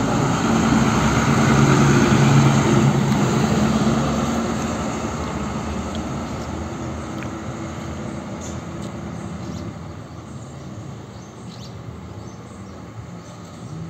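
Mitsubishi Fuso dump truck's diesel engine running as it passes close by, loudest at first and then fading steadily as it drives away.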